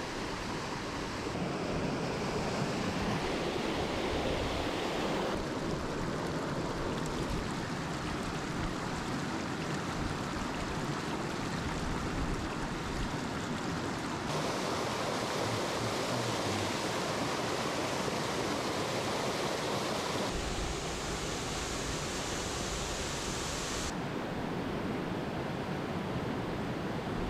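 Rushing water of a waterfall or stream: a steady rushing noise that changes in tone abruptly several times.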